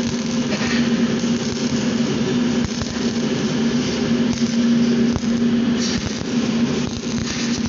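MIG welding arc crackling and sizzling steadily over a constant hum.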